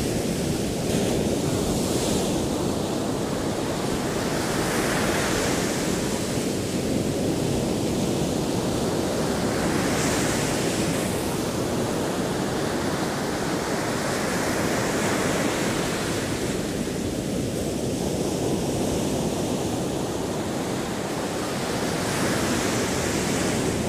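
Ocean surf washing onto a beach, a steady rush that swells with each wave about every five seconds.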